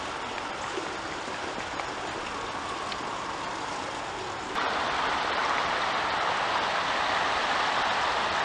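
Steady rushing of a shallow stream flowing over rocks. It becomes suddenly louder and brighter about halfway through.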